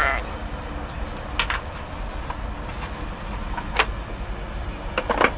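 A few short, sharp plastic clicks and knocks as red plastic pieces are set down on a round wooden camping table, over a steady low background rumble.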